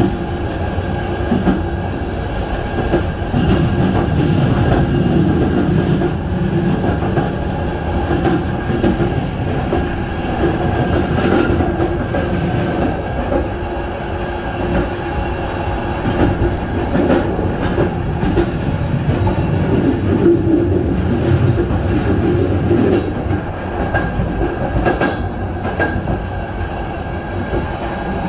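Passenger train running along the track: a steady low rumble with scattered clicks from the wheels over the rails.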